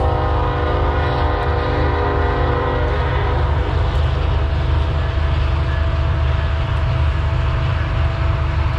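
A horn sounds a chord of several steady tones for about three seconds, then stops, over a steady low rumble.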